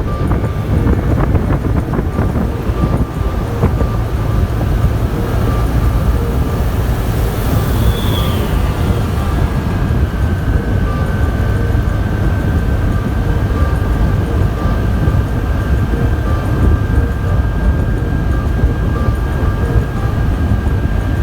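A road vehicle in motion, giving a loud, steady low rumble of running and road noise with no break, and a faint high tone that sets in about halfway through.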